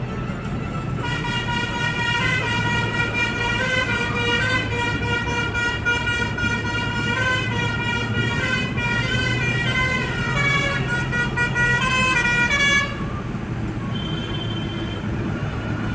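Inside a moving car: a single-voice electronic tune, stepping up and down in pitch, plays for about twelve seconds over the steady hum of the engine, then cuts off suddenly.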